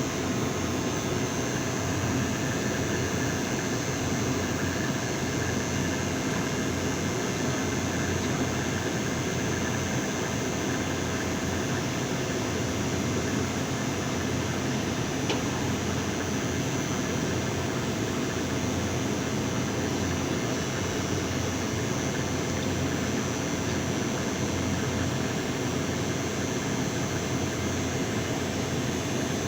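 Steady machine noise, an even rushing drone with a faint constant whine, unchanging throughout.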